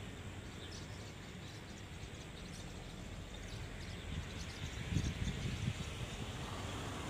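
Outdoor background noise with faint high chirps, swelling to a low rumble about four to six seconds in.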